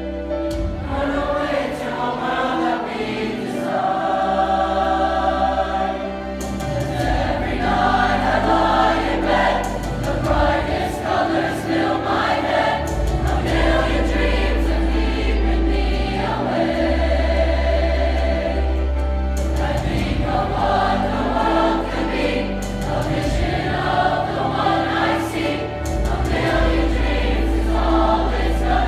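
Large mixed high school choir singing, many voices together, over an accompaniment with long, deep bass notes.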